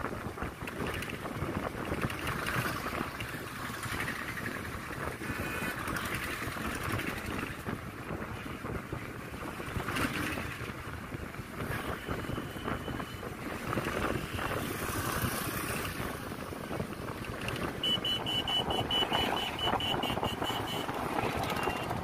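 Wind rushing over the microphone with steady road noise from a vehicle moving across a bridge. A short high tone sounds about twelve seconds in, and a quick run of high-pitched pulses follows for about three seconds near the end.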